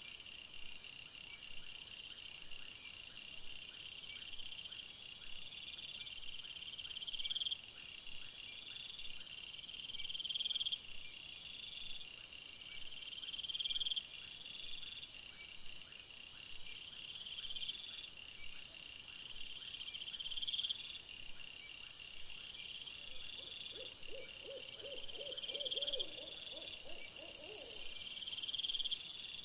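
Night insects, cricket-like, chirping in repeated high phrases that swell and cut off about every two seconds. A few seconds of lower pulsing calls come in about two-thirds of the way through, and a high hiss rises near the end.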